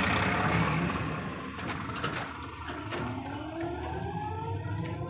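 Moving electric rickshaw (toto): road noise and rattling at first. From about halfway, a whine rises steadily in pitch as it picks up speed.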